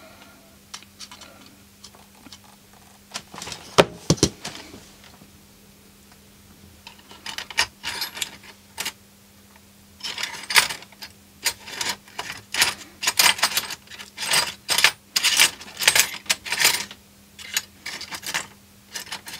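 Small hard tools being handled on a workbench: a couple of sharp knocks about four seconds in, then a long run of irregular clinks and rattles from about seven seconds on. A faint steady hum sits underneath.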